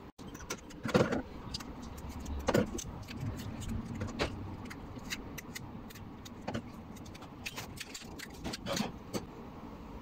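Handling noise right at the microphone: cloth rustling and light clicks and knocks from hands moving, with a few louder bumps scattered through.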